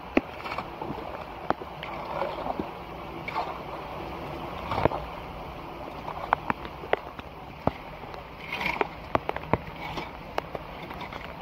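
Shallow floodwater splashing and sloshing as boots wade through it and soggy, waterlogged leaves are pulled away from a clogged storm drain, with many sharp little splashes throughout.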